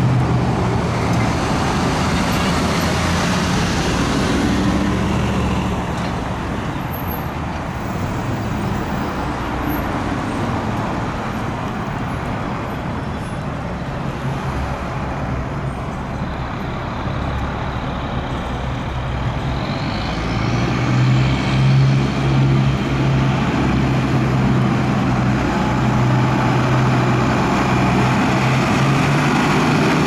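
E-One fire engine's diesel engine running with a low, steady rumble over passing street traffic, growing louder about twenty seconds in as the truck pulls out.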